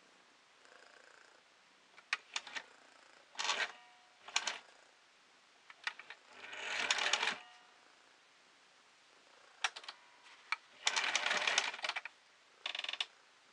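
Sewing machine stitching in short runs, five of them, the longest about a second, with single sharp clicks between them.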